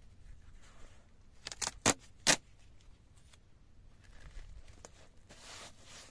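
Silver adhesive tape pulled off its roll in a few short, sharp rips about two seconds in, then a soft rustle near the end as the strip is rubbed down over the seam between two foam sheets.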